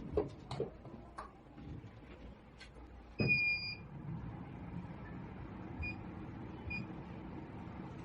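A few short clicks, then a VelaShape-type body-contouring machine gives one loud electronic beep about three seconds in and two short, fainter beeps a few seconds later, over a low steady hum.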